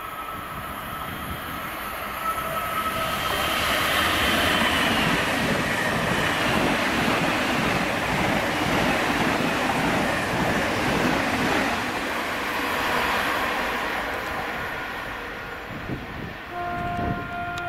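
Electric multiple-unit passenger train passing close by at speed: a rushing clatter of wheels on rail that builds, holds for several seconds and fades as the train goes by. Near the end a short train horn sounds.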